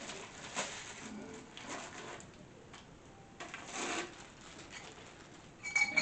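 Plastic packaging rustling and crinkling in short bursts as chrome shelf poles are handled and unwrapped. A brief high-pitched whine comes near the end.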